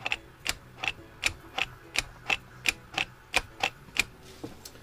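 Throttle and stop cable linkage on a Yanmar 2GM20F diesel clicking as the cables are worked back and forth from the helm after lubing. The metallic clicks come evenly, about three a second, and stop about four seconds in.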